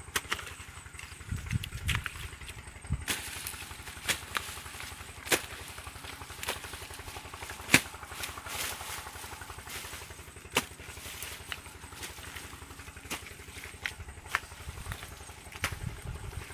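A small engine running steadily, with sharp clicks and knocks at irregular intervals over it.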